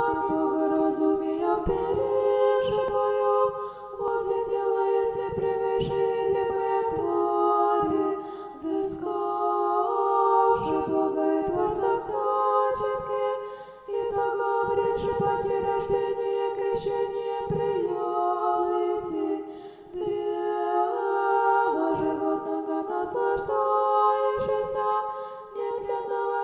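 Orthodox church choir singing a chant a cappella, in held chords. The phrases run about five to six seconds each, with short breaths between them.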